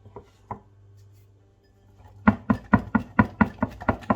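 A utensil beating flour-and-water batter in a bowl: a couple of light knocks, then from about two seconds in a fast, even clacking against the bowl, about four or five strokes a second.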